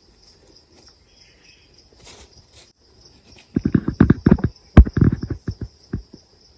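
A quick run of dull thuds and knocks lasting about two and a half seconds, starting a little past the middle, over a faint steady high insect drone.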